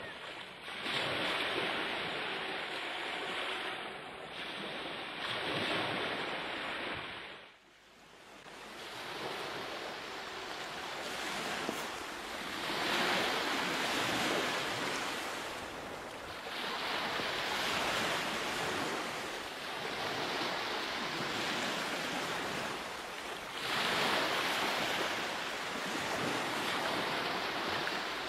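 Ocean surf: waves breaking and washing in, swelling and fading every few seconds, with a short drop in level about seven and a half seconds in.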